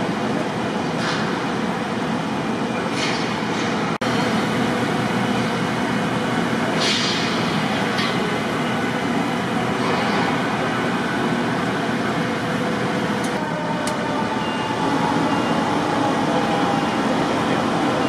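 Steady rumble of street traffic and idling heavy vehicles, with several short hisses along the way.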